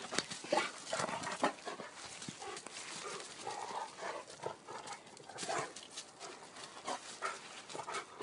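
Rottweiler making short throaty vocal noises as it grabs and tugs at a rope-hung tyre swing, with irregular scuffs and knocks from its feet in dry leaves and the tyre.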